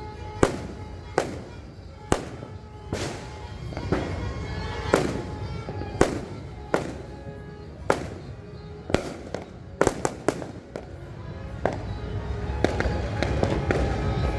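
Firecrackers going off one after another, a sharp bang about every second, with a quick run of several bangs around ten seconds in. Under them is a steady din with faint held tones, and a low rumble that grows near the end.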